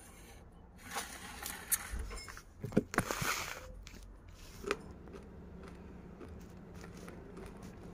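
Handling noise: a string of sharp clicks, scrapes and rustles as the phone and the small objects among the dusty debris are moved, busiest in the first half with a brief scraping rush about three seconds in, then only a faint steady background.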